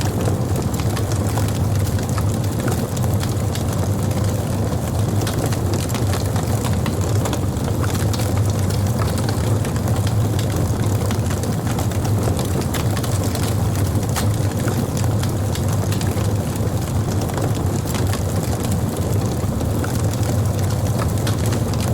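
Wood burning on a campfire: frequent small pops and crackles over a steady low rumble.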